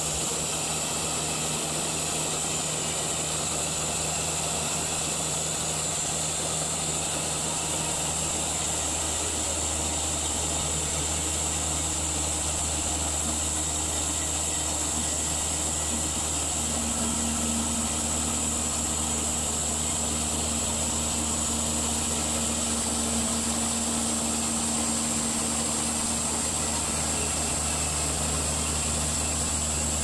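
Baker Products Model 3665D band sawmill running steadily as its band blade cuts lengthwise through a long cedar log. A second, higher steady hum joins about halfway through.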